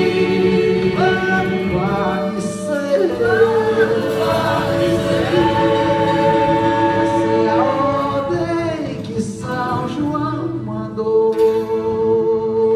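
A group of voices singing a Brazilian folk song together, holding long notes between phrases.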